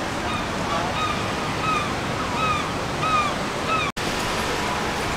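A bird calling over a steady rushing of wind and street noise: a run of short, arched calls repeated about every half second, ending as the sound cuts out for an instant near the end.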